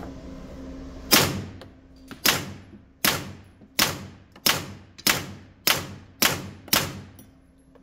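Nine suppressed shots from a Heckler & Koch VP9 9mm pistol fitted with a YHM R45 suppressor, firing hollow points. Each shot is a sharp report with an echoing tail in a concrete indoor range. They start about a second in, with a little over a second between the first two, then one about every two-thirds of a second. The pistol cycles every round with the heavy can on.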